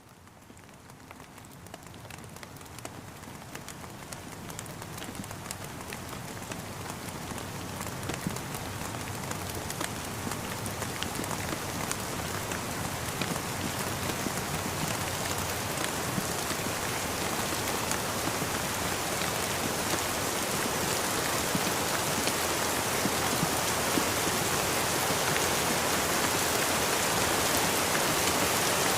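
Rain falling steadily, a dense patter of many small drops. It fades in from very quiet and grows gradually louder throughout.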